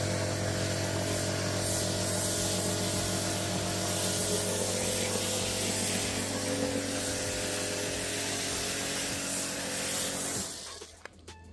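Kärcher K7 Smart Control pressure washer running under load, a steady motor hum under the loud hiss of spray from an MJJC foam cannon. It stops abruptly near the end as the trigger is released.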